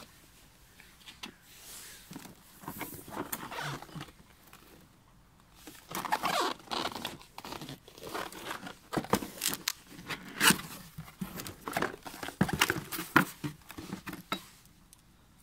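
Cardboard box of a large angle grinder being handled and opened: scraping, crinkling and rustling of the cardboard and its flaps, with sharp knocks mixed in. Sparse at first, busier and louder over the second half.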